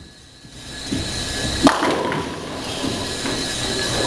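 Bowling ball rolling down the lane and crashing into the pins about a second and a half in, followed by pins clattering and the rumble of the pinsetter as its sweep comes down.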